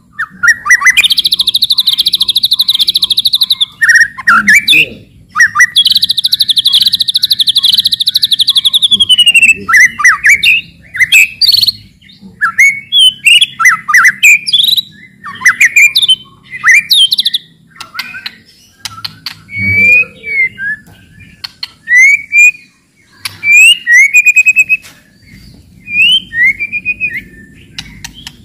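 White-rumped shama singing. Two long, fast rattling trills (cetrekan) fill the first ten seconds, followed by a run of short, varied whistled and chirping phrases.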